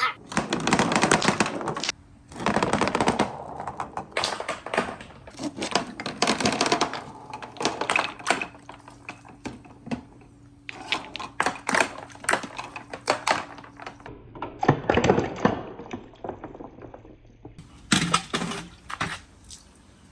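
Marbles rolling and clacking along a wooden marble run, in bursts of rapid clicks with short pauses between them.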